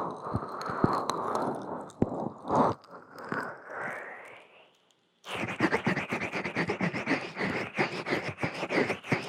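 Hands rubbing and massaging the ears of a binaural ASMR microphone, close-up rustling and crackling scrapes. The rubbing fades out about four to five seconds in, and after a brief silence a new, crackly bout of rubbing starts abruptly.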